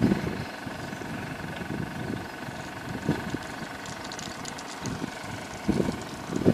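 Level crossing alarm warbling steadily, warning road users that a train is approaching, with irregular gusts of wind buffeting the microphone.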